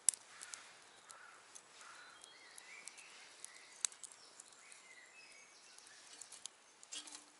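A small fire of bark and leaves crackling in a titanium wood-burning box stove, with a few sharp snaps, the loudest near the start and about four seconds in. Faint bird chirps sound now and then.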